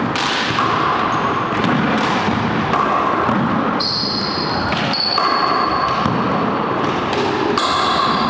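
Handball rally: the rubber ball smacking repeatedly off the walls and floor, with sneakers squeaking in short bursts on the hardwood floor.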